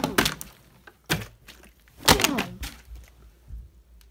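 Plastic water bottles knocked and handled, giving a series of sharp knocks and crackles. The loudest comes at the start and a cluster follows about two seconds in.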